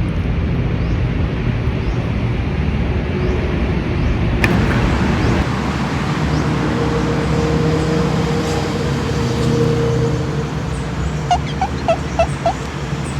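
Steady background rumble of road traffic, with a quick run of five short chirps near the end.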